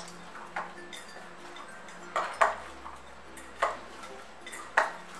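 Stainless steel bowl knocking and clinking as a ball of oiled dough is pressed and kneaded in it: about five separate sharp knocks, the loudest a little past two seconds in.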